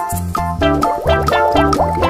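Upbeat background music with a steady beat and bright, quickly repeated bubbly notes.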